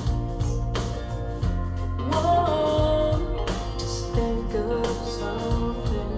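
Music: a guitar-led song with a steady beat, a held melody line coming in about two seconds in.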